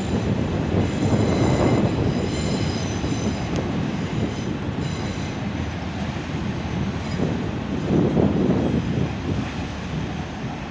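Electric multiple unit moving slowly along the platform: a steady rumble of wheels on track, with a faint high wheel squeal over roughly the first half.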